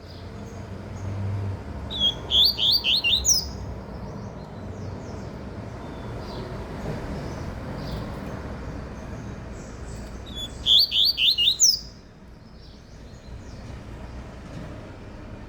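Double-collared seedeater (papa-capim/coleiro) singing two short phrases of quick, rising high chirps, about six notes each and some eight seconds apart. A steady low rumble sits underneath.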